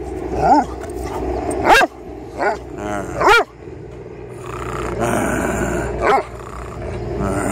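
A Doberman barking at close range: single barks, four in the first three and a half seconds and one more about six seconds in.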